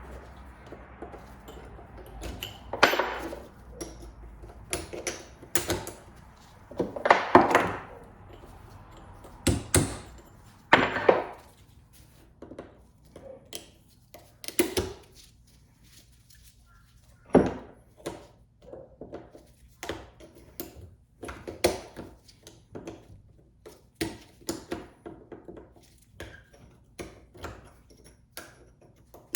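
A chisel working the rusted retaining clips off the bearing caps of a double cardan driveshaft's U-joints: irregular sharp metal taps and clicks, with a few louder scraping knocks.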